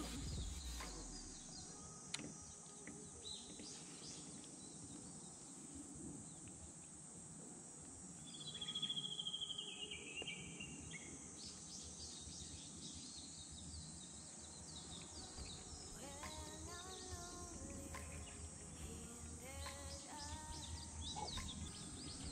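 Faint outdoor ambience with birds calling over a steady high hiss. One call slides down in pitch about eight seconds in, and several wavering calls and short chirps come in the last few seconds.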